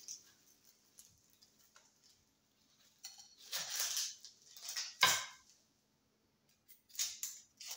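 Kitchen handling noises as an onion is prepared for slicing: a few scattered scrapes and rustles with a sharp knock on the cutting board about five seconds in, over a faint steady hum.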